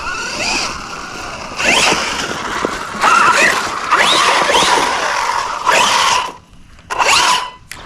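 Losi Super Rock Rey RC truck's brushless electric motor whining up in pitch in repeated throttle bursts, with its tyres scrabbling over dirt and gravel. A steady high beep runs under it, which is the truck's battery warning, and the run drops away briefly twice near the end.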